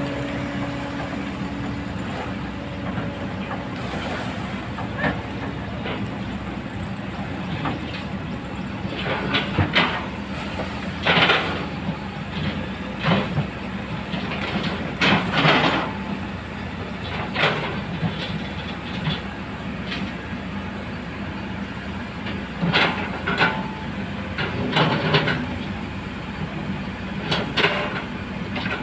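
Diesel engines of an excavator and dump trucks running steadily, with repeated sharp metallic clanks and rattles, some in quick pairs, from about nine seconds in.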